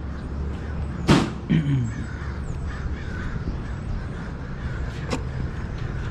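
A sharp knock about a second in, followed by a couple of harsh, falling, crow-like caws, over a steady low rumble.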